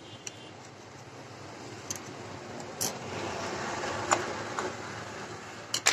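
Faint clicks from the plastic slide switch and housing of an opened solar torch being handled, over a steady background noise that swells and then eases off.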